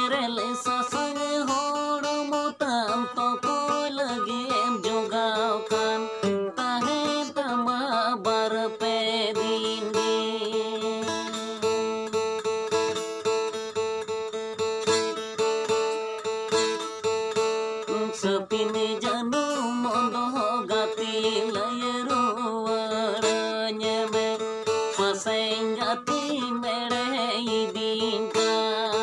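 A man singing a Santali lagre song to his own acoustic guitar, with stretches of guitar alone between the sung lines.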